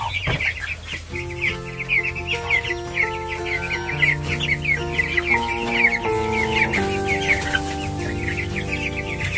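A flock of young chicks peeping nonstop, many high cheeps overlapping. Background music with held notes comes in about a second in.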